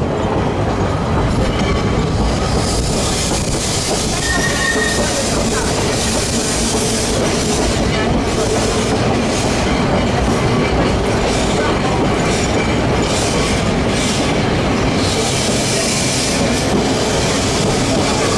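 Vintage narrow-gauge Manx Electric Railway tram running along the track, heard from aboard: a steady rumble of wheels on rail with scattered rail-joint clicks. A short, high wheel squeal comes about four seconds in.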